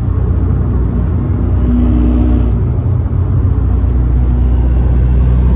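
Steady engine and road rumble inside a Mk6 Volkswagen's cabin at highway speed, growing a little louder toward the end.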